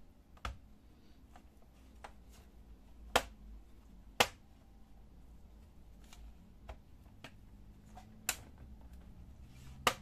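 Sharp plastic clicks as a pry tool works around the edge of a Dell Inspiron 15 3573's plastic bottom panel, its retaining clips snapping loose. About five separate clicks, the loudest two about three and four seconds in.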